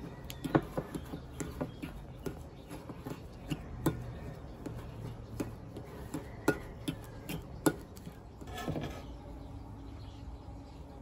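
A metal fork clinking and scraping against a ceramic bowl while it mashes crumbly queso fresco, irregular light taps with a few louder knocks. The clinking dies away near the end.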